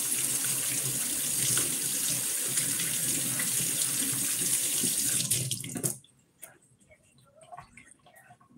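Kitchen tap running into the sink, a steady rush of water that is shut off about six seconds in, followed by a few faint clicks.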